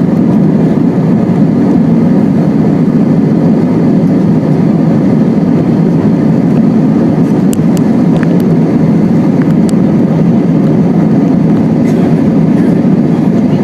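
Airbus A320 cabin noise: a loud, steady rumble of the jet engines and airflow heard from inside the passenger cabin, with a few faint ticks around the middle.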